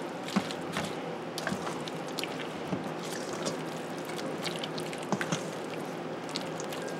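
Silicone spatula stirring a thick, creamy mixture in a stainless steel bowl: soft wet squishing, with a few faint clicks.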